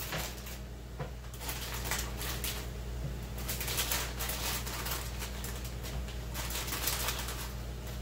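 Plastic bag of baby gold potatoes crinkling and rustling in a stream of irregular crackles as potatoes are pulled out of it by hand and set down on a cutting board. A low steady hum runs underneath.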